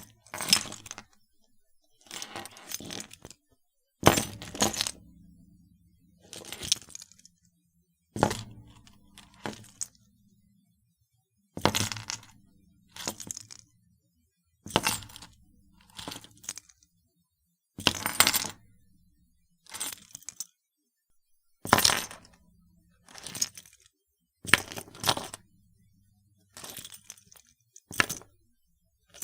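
A bunch of metal keys repeatedly set down on a desk and picked up again, each a short jangling clatter. It happens about a dozen times, with silence between.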